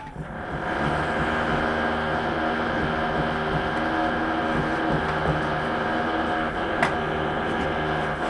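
A machine starting with a click and building within about a second to a steady hum that holds level, with one sharp click about seven seconds in.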